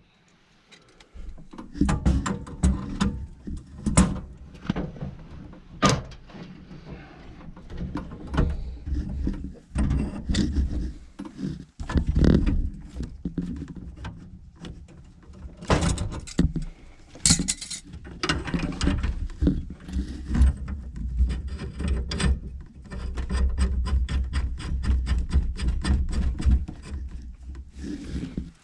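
Irregular metallic clanks, clicks and scrapes of a wrench working a gas pipe fitting at a furnace gas valve, with bumps and rumbling handling noise.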